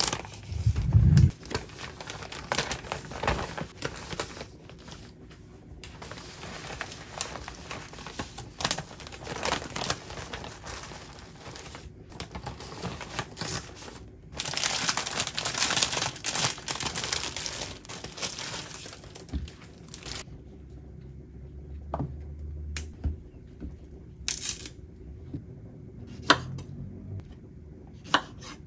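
Plastic bread bags crinkling and rustling as bread slices are handled and packed. In the last third the rustling dies down to a few separate sharp knocks, like a knife on a wooden cutting board.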